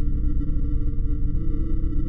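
A steady electronic drone: a loud low hum under several sustained high tones, with a slight shift in pitch about one and a half seconds in.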